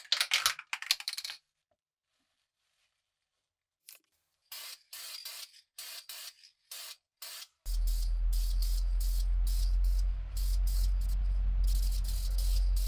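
Short hissing spray bursts, one at the start and then a quick run of them from about four and a half seconds in. From about three-quarters of the way through, a steady low hum comes in under further bursts.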